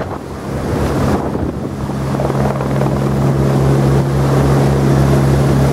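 Helicopter running close by: a steady engine drone with a regular rotor beat, growing louder over the first couple of seconds and then holding. Wind buffets the microphone.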